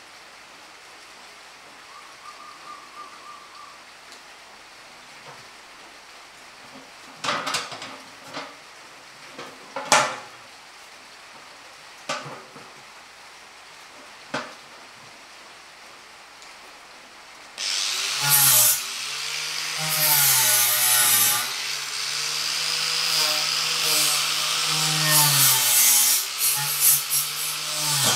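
A few sharp knocks as the steel ammo can is handled, then about two-thirds of the way in an electric angle grinder starts and runs loudly, its motor pitch dipping and recovering again and again as the disc is pressed against the can's metal.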